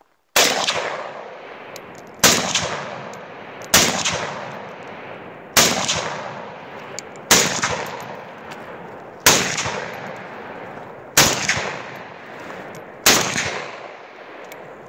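Hungarian Type 3 AK-47 rifle in 7.62×39mm firing eight single shots at an unhurried pace, about two seconds apart. Each loud crack is followed by an echo that fades over a second or so.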